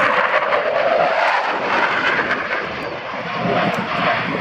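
Jet aircraft flying overhead: a steady, loud rushing engine noise that dips slightly about three seconds in and then swells again.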